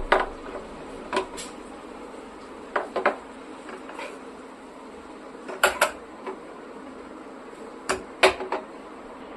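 Kitchen utensils and cookware knocking and clinking, about a dozen sharp strikes scattered through, several in quick pairs, over a steady low hum.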